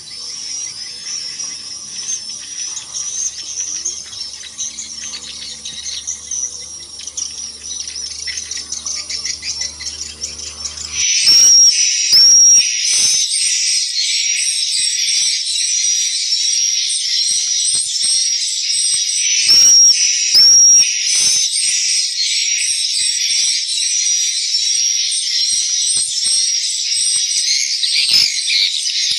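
Swiftlets twittering: faint high chirps at first, then about 11 seconds in a sudden switch to a dense, loud chatter of edible-nest swiftlet calls inside the swiftlet house, with scattered clicks.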